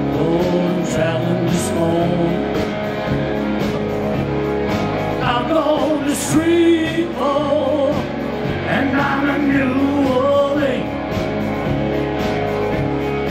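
Live band playing rock and roll: electric guitars and drums, with a lead line that bends and wavers in pitch in the middle.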